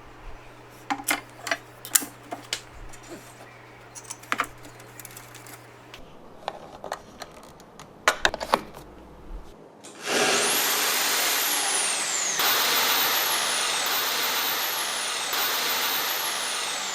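A few light clicks and taps, then about ten seconds in a corded power tool switches on and runs loudly. Its high motor whine sags in pitch several times, as under load.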